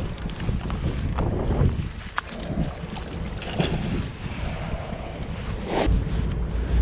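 Wind buffeting the microphone in a low, uneven rumble, growing stronger near the end, with a few faint clicks.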